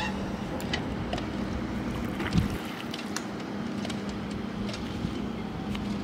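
Steady low hum of a distant motor over open-air background noise, with scattered light clicks and a single dull thump about two and a half seconds in.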